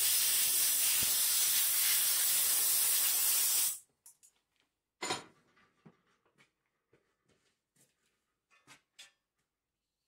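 Compressed-air blow gun blasting a steady, loud hiss for about four seconds, then cutting off suddenly. About a second later comes a brief burst, then a few faint knocks.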